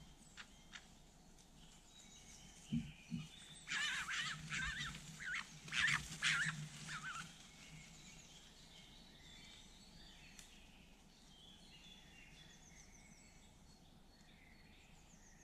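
Red fox cubs squealing and whining in a rapid string of high, wavering calls lasting about three and a half seconds, starting about four seconds in. Two soft thuds come just before, and birds chirp faintly in the background.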